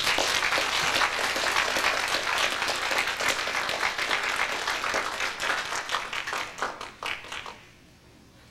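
Audience applauding, a dense patter of many hands that thins to a few scattered last claps and stops about seven and a half seconds in.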